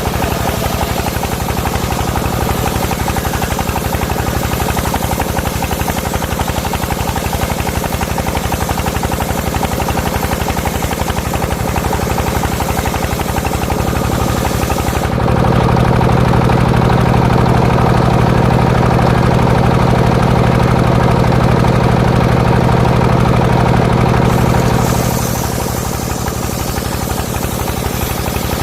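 Engine of a homemade circular saw rig running steadily, with a louder, heavier stretch of about ten seconds in the middle.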